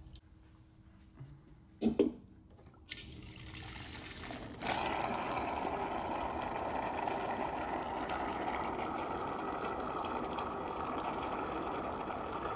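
A short knock about two seconds in, then foamy StarSan sanitizer and CO2 gas spurting from a jockey box's draft faucet into a pitcher: a hiss that swells into a steady rushing spray about four and a half seconds in. The cleaning keg has run dry and CO2 is pushing the last sanitizer out, purging the coils.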